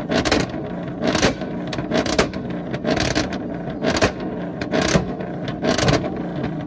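A car engine running steadily, with short rushes of noise coming every half second to a second and standing out above it.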